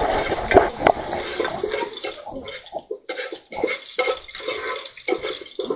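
Ginger sautéing in hot cooking oil in a steel pot, a crackling sizzle, with a metal spoon clinking and scraping against the pot.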